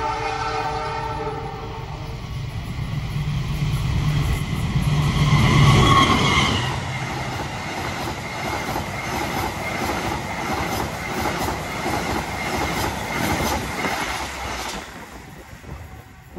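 The Argo Dwipangga passenger express, a diesel locomotive hauling a rake of coaches, sounds its horn for about the first two seconds, then passes close by. The locomotive's rumble peaks about six seconds in, followed by the rhythmic clickety-clack of the coaches' wheels until the sound drops away near the end.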